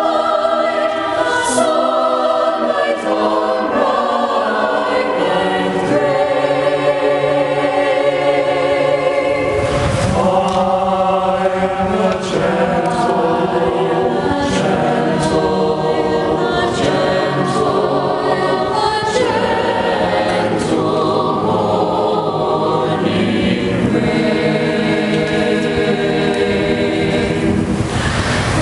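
Mixed chamber choir of men and women singing a sacred choral piece in sustained, slow-moving chords, with lower voices joining a few seconds in.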